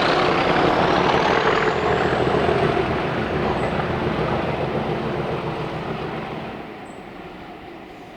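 Heritage mainline diesel locomotive under power, passing and then fading into the distance from about three seconds in. A high whistle rises in pitch over the first few seconds.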